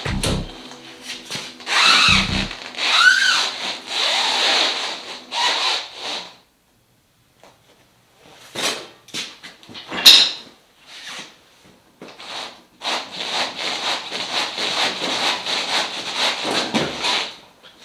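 Knocks, scrapes and squeaky rubbing from a steel-tube off-road kart and its jack stands as it is handled in the first few seconds. Later there is a run of rhythmic rubbing creaks, about two or three a second, as weight is put on the kart's frame and it works on its cantilever coilover suspension.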